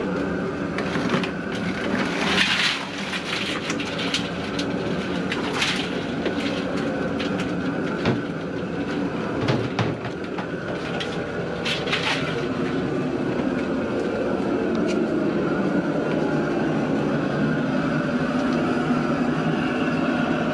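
Live blue crabs tumbling from a cooler into a perforated aluminium boiling basket, their shells clicking and clattering over the first dozen seconds or so. Under it runs a steady roar from the propane boil burner, which has been relit to bring the water back to the boil.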